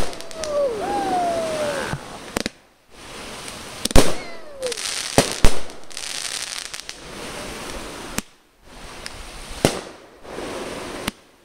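Aerial fireworks going off: several sharp bangs a few seconds apart, with crackling and hiss between them.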